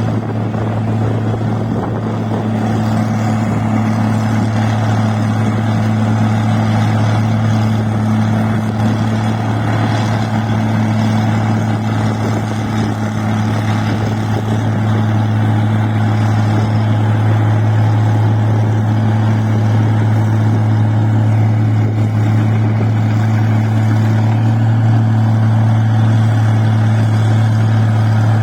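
Rice-processing machine running steadily, with a constant low engine hum over a dense mechanical whirr, getting slightly louder about halfway through.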